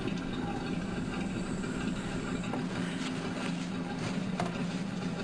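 A steady low hum, with a few faint clicks in the middle.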